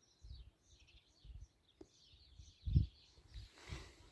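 Small birds chirping repeatedly in quick, high, short notes, with wind rumbling on the phone's microphone in gusts.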